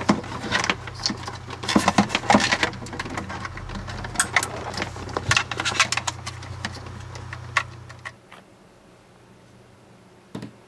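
Ethernet cables being plugged back into a network switch: a rapid run of plastic clicks and knocks as the RJ45 plugs are pushed in and the cables are handled, stopping about eight seconds in. One more single click comes near the end.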